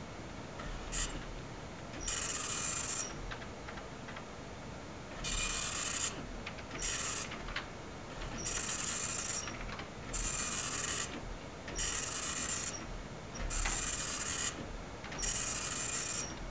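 A machine rasping in repeated bursts, each about half a second to a second long, with short uneven pauses between them.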